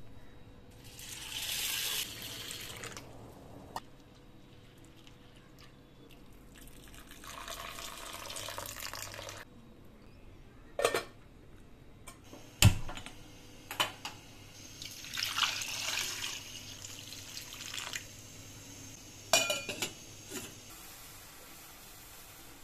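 Kitchen water running or being poured in several bursts of a few seconds each, with a handful of sharp clinks of stainless steel pots and lids in between.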